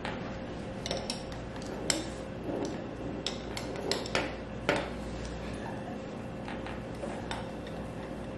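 Light metallic clicks and clinks, scattered and irregular, from hydraulic hose fittings and quick-connect couplers being handled and fitted together.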